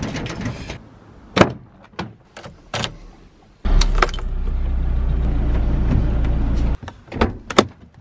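A few sharp clicks and knocks of keys in a lock and a door, then a Volkswagen car engine started with the ignition key and idling steadily for about three seconds before it cuts off suddenly. Two more clicks follow near the end.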